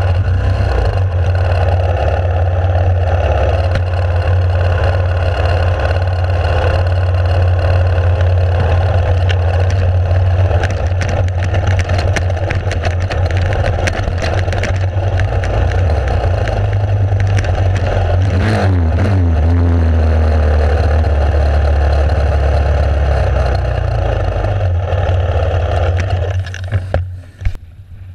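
Enduro motorcycle engine running steadily under way, with a brief change in pitch about two-thirds of the way through. The sound drops away sharply near the end.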